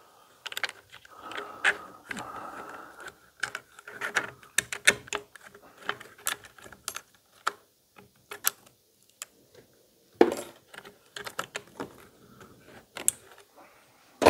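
Irregular small clicks, taps and rattles of plastic and metal parts as a Stihl MS170 chainsaw's carburetor is worked off by hand, with a brief scraping rustle about a second in.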